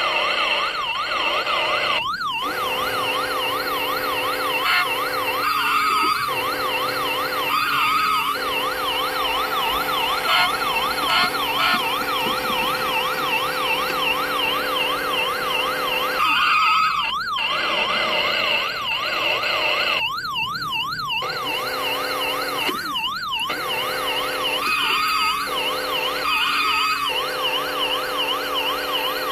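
Electronic police siren from a 1993 TOMY police-car driving game toy, a fast, even up-and-down wail over a steady electronic tone. It cuts out briefly a few times.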